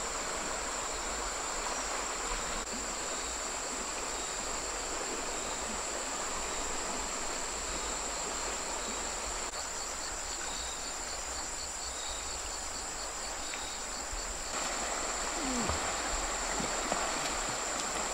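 Insects buzzing with a constant high-pitched drone, and a second insect chirping in a fast even pulse for about five seconds in the middle, over a steady rushing hiss like running river water.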